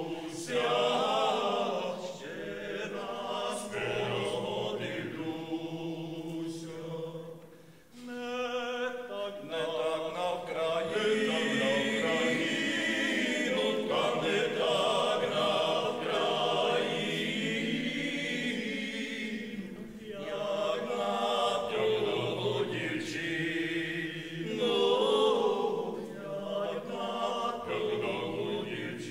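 Choral music: a choir of voices singing long held notes, with a brief break about eight seconds in.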